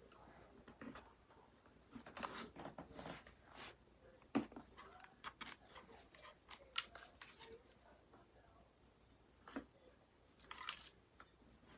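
Faint, irregular clicks, crinkles and scrapes of hands handling an adhesive LED light strip and its backing on a motorcycle helmet shell, with two sharper clicks about four and seven seconds in.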